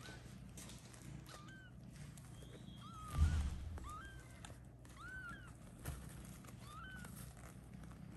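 Newborn kitten mewing: a string of short, high, thin cries, each bending up then down, coming roughly once a second. A dull thump about three seconds in is the loudest sound.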